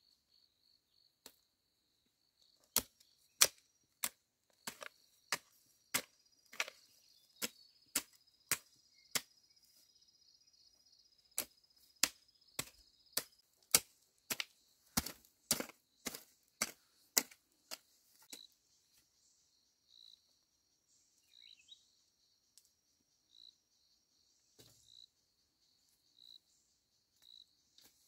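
Chopping blows, sharp and loud, one to two a second, stopping after about fifteen seconds. A high, steady trill of insects runs underneath, and after the chopping a faint high chirp repeats about once a second.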